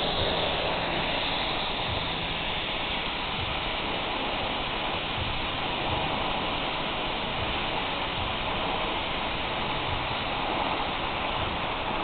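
TIG welding arc hissing steadily while the final pass is laid on a tube.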